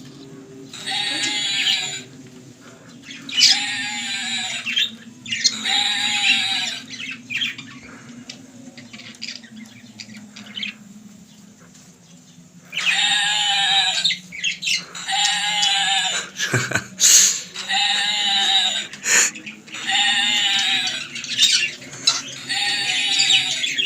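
A sheep bleating over and over, one call about a second long roughly every second and a half, with a pause of several seconds midway.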